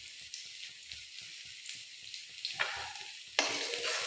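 Sliced onions sizzling in hot oil in a kadai. About three seconds in, a spatula starts stirring them, scraping against the pan.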